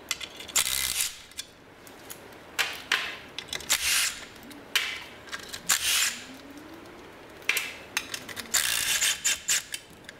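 Cordless Milwaukee half-inch impact wrench with a 14 mm swivel socket spinning the 14 mm bolts out of a driveshaft cover in several short bursts, with light metallic clinks from the socket and bolts.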